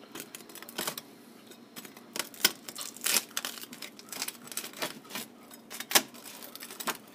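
Knife cutting through the crisp crust of a double-crust pizza: irregular crackling and scraping, with a few sharper clicks against the pan.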